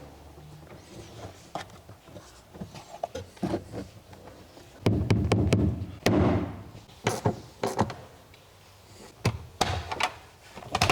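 Scattered clicks, taps and thunks of car interior parts being handled and fitted, with a louder stretch of knocking around the middle: a ski bag going into a car's rear seat.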